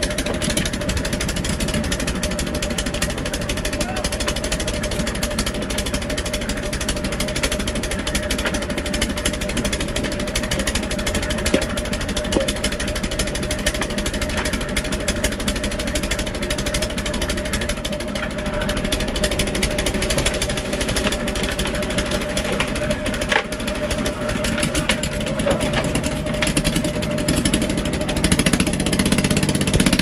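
Portable concrete mixer's engine running steadily with a rapid, even clatter as its drum turns, with a lower engine note building near the end.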